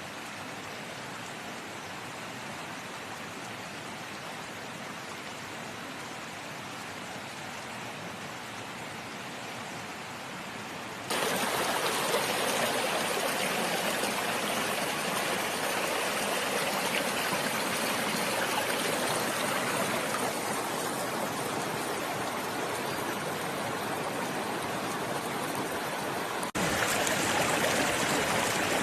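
Flowing water of a stream or small waterfall, a steady rush. It jumps abruptly louder about a third of the way in and again near the end.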